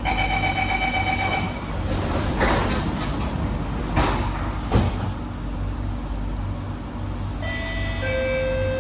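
Inside an SMRT C151B metro train: the door-closing warning tone sounds for about a second and a half, then the sliding doors shut with a few knocks. Near the end the traction motors start a steady multi-tone whine as the train begins to pull away.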